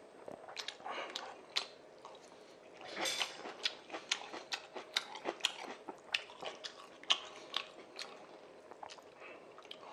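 Close-miked chewing of jjapagetti noodles and kimchi: wet mouth clicks and smacks a few times a second, with a louder spell about three seconds in.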